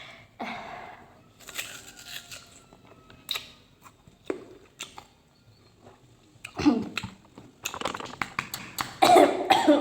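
Someone biting into and chewing mango, with short crunches, clicks and mouth sounds, denser from about six and a half seconds in.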